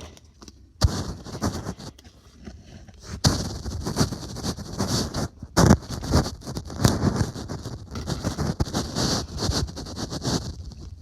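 Irregular knocks, scrapes and scuffing as a new PVC drain fitting is pushed down into its epoxy-packed socket in the ground, with one sharp knock about five and a half seconds in.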